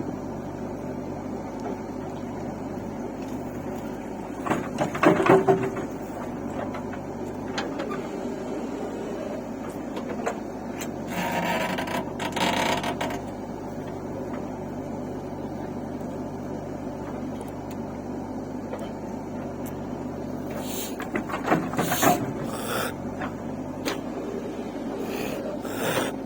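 A heavy diesel machine's engine running steadily, with louder clanking and scraping about five seconds in, around twelve seconds in, and again near twenty-two seconds.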